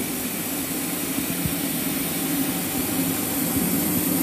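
Double-layer folding wrapping machine for chocolate bars running with its conveyor: a steady mechanical hum with a thin high whine and a couple of soft knocks.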